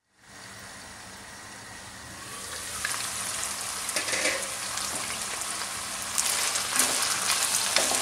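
Chicken strips sizzling in oil in a nonstick wok, the sizzle rising from about two seconds in. From about six seconds in a slotted spatula stirs the chicken, adding clicks and scrapes against the pan.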